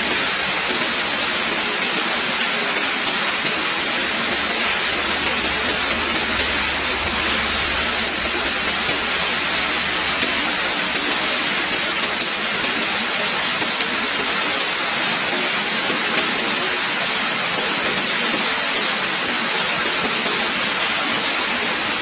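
Heavy rain falling steadily, a dense, even hiss of drops that does not let up.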